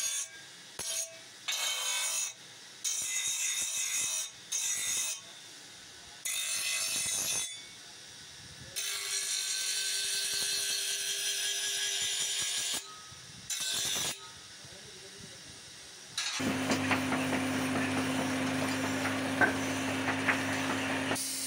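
Brass casting pressed against a spinning abrasive wheel on a bench motor, a rasping grind in irregular strokes of from under a second to about four seconds, with quieter gaps between. About 16 seconds in it gives way to the steady hiss of a gas torch flame heating brass, over a low hum.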